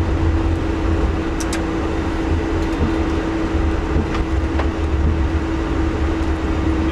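Airbus A330 flight deck noise on the takeoff run: a steady low rumble with a constant hum, and a few faint ticks.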